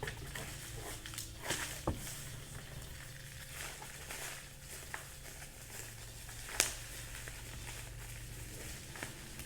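Packaging handled by hand: scattered crinkles, rustles and small clicks, with a sharper click about six and a half seconds in.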